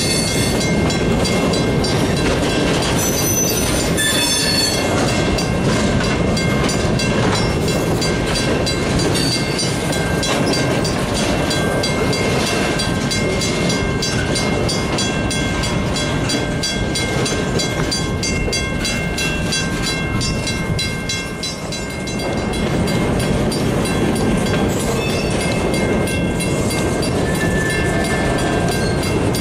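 Freight cars, mostly empty centerbeam lumber flatcars, rolling slowly past, their wheels clicking steadily over the rail joints with a rumble of running gear. Faint high wheel tones come and go.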